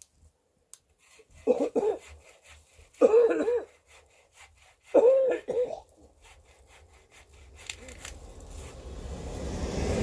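A handsaw cutting a small snow-covered sapling in three short bouts of quick strokes, the blade ringing with a wavering pitch. Near the end a swelling rustle and swish as the cut branches are pulled through the snow.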